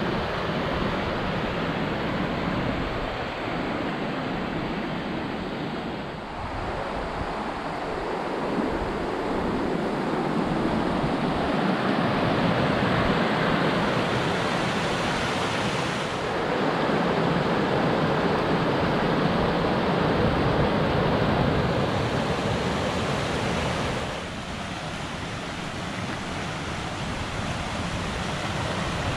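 Mountain creek rushing and splashing over rocks and small cascades, a steady loud rush that grows louder through the middle and falls back about three-quarters of the way through.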